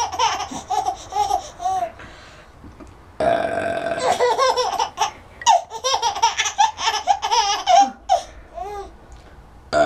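A person's long belch about three seconds in, with another starting near the end, and a baby's high-pitched laughter in many short bursts after each burp.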